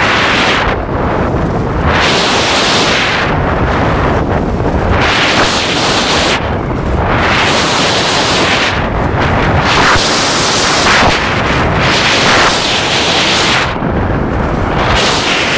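Wind buffeting the microphone: a loud, steady rumble with gusts that swell and fade every second or two.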